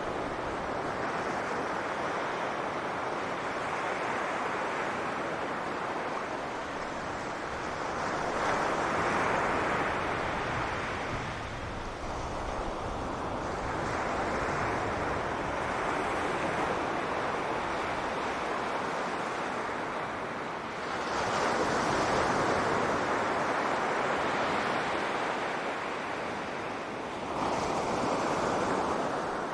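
Ocean waves breaking on a beach, a steady wash of surf that swells louder as each wave comes in, about three times, with some wind on the microphone.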